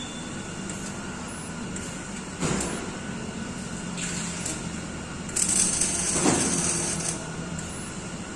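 MIG welding: the arc gives a burst of crackling hiss about five seconds in that lasts a second and a half, over steady background noise, with a single knock earlier on.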